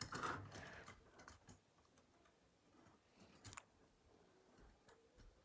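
Faint small plastic clicks and taps from a model train wagon being handled on its track as its knuckle coupler is pushed toward the locomotive's. The sharpest click comes about three and a half seconds in.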